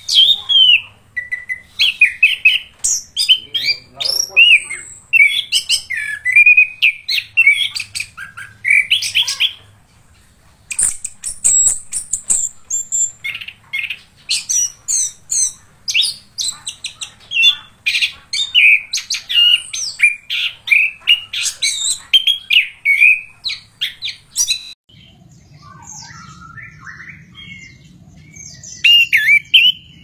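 Orange-headed thrush singing a fast, continuous song of varied whistled phrases and chirps, with a short pause about ten seconds in. After about 25 seconds the song gives way to quieter, scattered notes over a low hum, then a brief loud phrase near the end.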